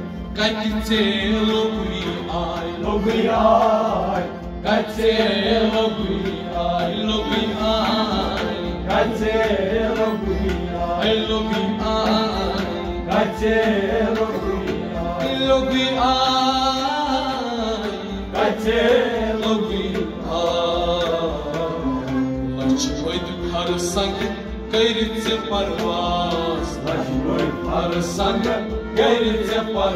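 Kashmiri folk music: a melody carried over a steady hand-drum beat.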